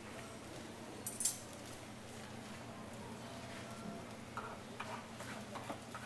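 Metal tongs clinking against a stainless steel tray of tteokgalbi patties: a sharp clink about a second in, then a few softer clicks near the end, over a low steady background hum.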